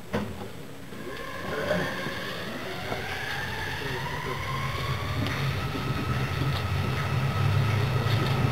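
Yokohama Municipal Subway Green Line 10000-series linear-motor train pulling away, heard from inside the car as it accelerates. A short knock at the start, then the motor drive's whine rises steadily in pitch while the low rumble of the running gear grows louder.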